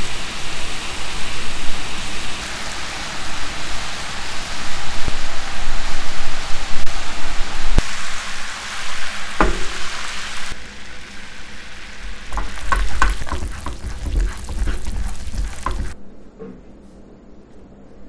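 Sugar syrup boiling hard in a nonstick pan over a gas burner: a dense bubbling hiss that turns, about ten seconds in, into sparser popping bubbles. The sound cuts off suddenly near the end.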